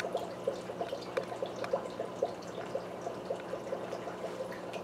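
Water from an Aqueon hang-on-back aquarium filter trickling and splashing into the tank, a quick uneven patter of small plops over a steady low hum.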